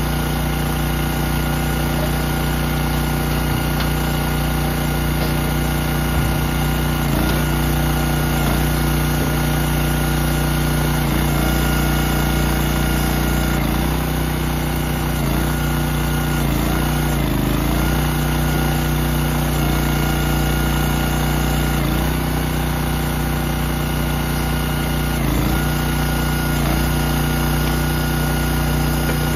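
Gas engine of a hydraulic log splitter running steadily, its pitch dipping briefly about six times as the ram is worked through the rounds under load.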